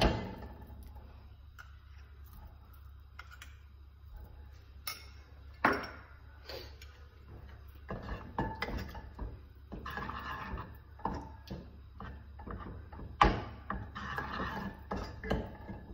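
Wooden spatula stirring in a pot of melted butter and oil, with irregular knocks and scrapes against the pot. Two sharper knocks stand out, one about six seconds in and one about thirteen seconds in.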